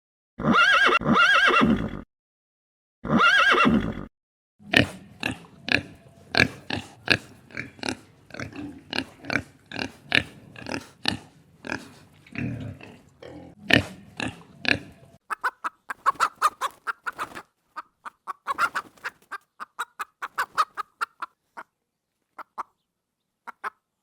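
Animal calls: two loud calls with many overtones in the first few seconds, then a rapid run of short sharp calls and clicks, thinning out into quieter short squeaks and sparse clicks after about fifteen seconds.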